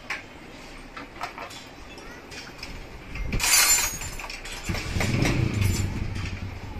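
Light metallic clicks from work at a motorcycle's handlebar and clutch lever. About three seconds in comes a brief, loud hiss, and from just under five seconds in a small engine runs steadily.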